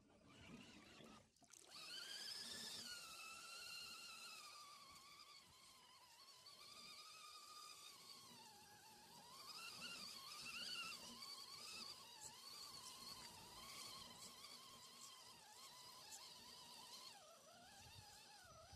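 Faint whine of a 1/10-scale RC crawler's electric motor and gears (SCX-10 chassis), starting about a second and a half in. Its pitch rises and falls with the truck's speed.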